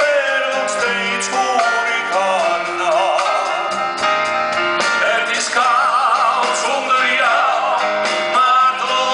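Live music: a man singing into a handheld microphone over a band with guitar, his held notes carrying a wide vibrato.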